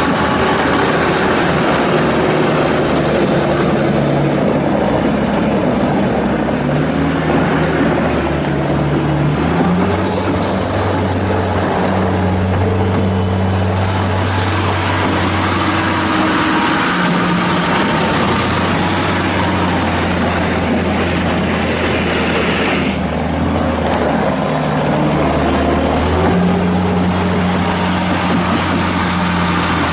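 2001 New Holland LS170 skid steer loader's 52 hp diesel engine running continuously while the machine is worked. The engine note shifts pitch several times, rising about ten seconds in, dropping around seventeen seconds, and rising again around twenty-six seconds.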